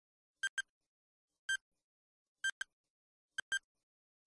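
Countdown timer sound effect: a short, pitched tick about once a second, most of them doubled into a quick tick-tock pair, with silence in between.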